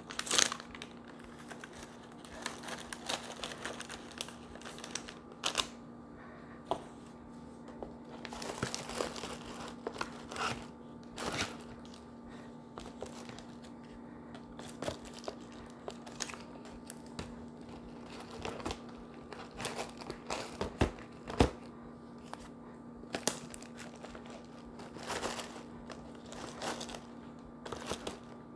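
Decorative paper shred rustling and crinkling as it is handled and tucked in around items in a box, with irregular light taps and knocks, the sharpest about two-thirds through.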